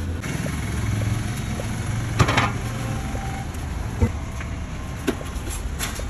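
Street traffic noise with a motor vehicle's engine running close by, and a few sharp knocks, the loudest about two seconds in.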